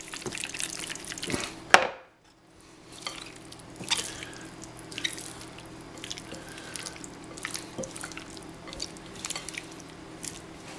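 Tofu cubes in a wet, juicy cornstarch coating tossed around a glass bowl, then turned with a silicone spatula: soft wet squishing and scattered light clicks of the spatula against the glass. A sharp knock a little under two seconds in, as the glass bowl is set down on the wooden cutting board.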